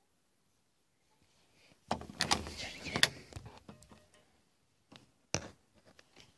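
Rustling and knocking of a handheld camera being moved about in the dark, starting about two seconds in and ending with a sharp click a little after five seconds.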